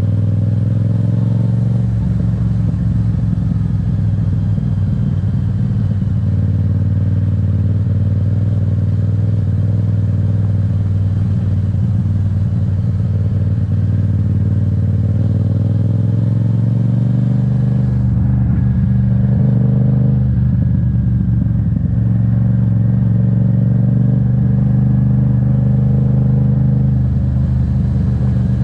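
Yamaha MT-07's parallel-twin engine running steadily as the motorcycle rides along, its note shifting a little with the throttle about two-thirds of the way through.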